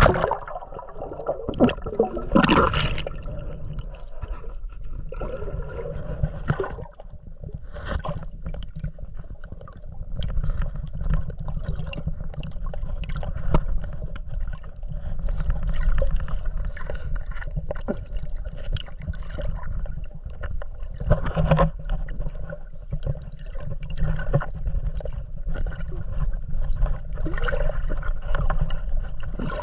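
Sea water sloshing and gurgling around a GoPro camera in the shallows, over a steady low rumble with scattered small clicks.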